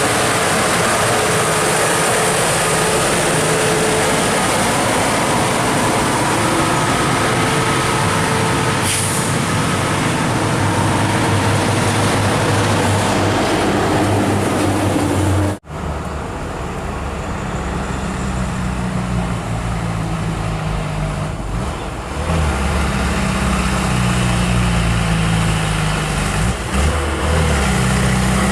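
Heavy trucks' diesel engines labouring up a climb, with dense road noise. There is an abrupt cut about halfway through, after which one truck engine runs low and steady.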